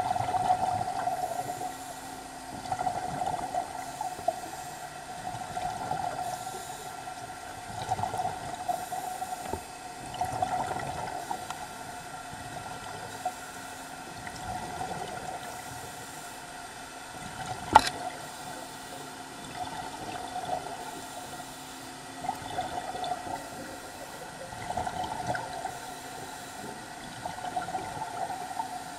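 Underwater water noise and bubbling that swells every two to three seconds over a faint steady hum, with one sharp click about eighteen seconds in.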